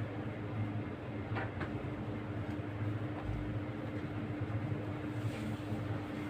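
A steady low hum with a constant faint tone, broken by a few faint short clicks about a second and a half in and again near the end.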